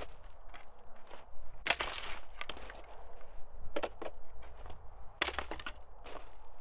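Thin scrap-wood slats being snapped: a few sharp wooden cracks, the loudest about two seconds in, with small knocks and clatter of pieces in between.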